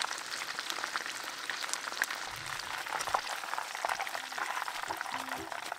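Breaded chicken cutlets deep-frying in hot oil: a dense, steady crackling sizzle of many small pops.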